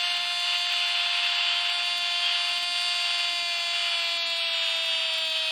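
A single long, steady horn-like tone, drifting slowly down in pitch, over faint stadium crowd noise.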